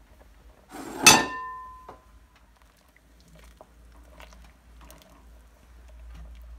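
Wooden spoon stirring milk and rice in a stainless steel pot. About a second in, one sharp knock against the pot leaves it ringing briefly, and softer scrapes and clicks of the spoon follow.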